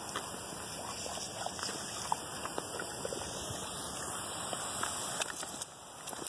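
Pop-up lawn sprinkler heads spraying water: a steady hiss that drops away shortly before the end.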